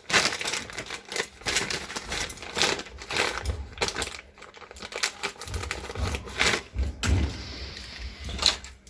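Hard plastic washing-machine door-handle parts being handled: irregular clicks, small knocks and rustling.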